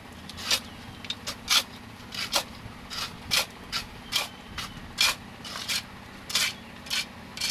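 Steel shovel blades scraping and scooping through a pile of sand, gravel and cement as concrete is mixed by hand, in short strokes about two a second, over a steady low hum.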